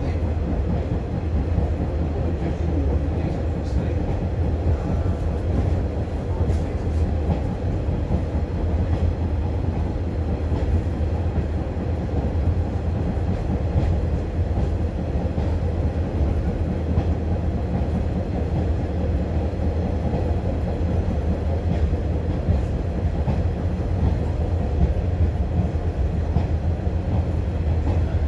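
Inside a British Rail Class 142 Pacer diesel railbus on the move: a steady low drone from its underfloor diesel engine, with the rumble and rattle of its wheels on the track.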